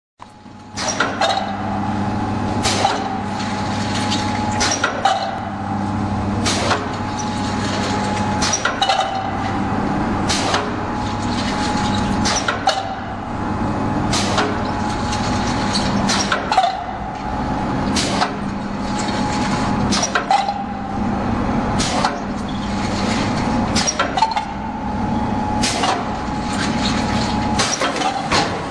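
Four-lane automatic cup filling and sealing machine running: a steady motor hum with sharp mechanical clacks about every two seconds as it steps through its cycle.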